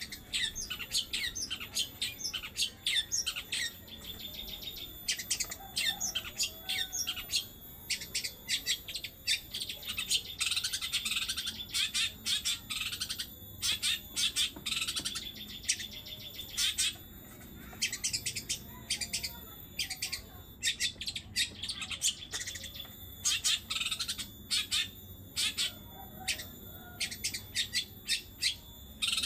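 Long-tailed shrike (cendet) singing a fast, continuous chattering song of rapid trills and harsh notes, with short pauses. It includes phrases copied from other birds, lovebird-style chatter that the bird has kept in its song.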